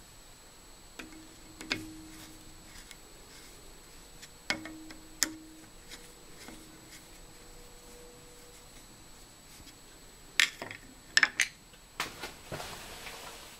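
Scattered sharp metallic clicks and taps from handling a digital caliper fitted as a readout on a milling machine's Y axis, with a brief low hum twice in the first six seconds and a quick run of clicks about ten to twelve seconds in.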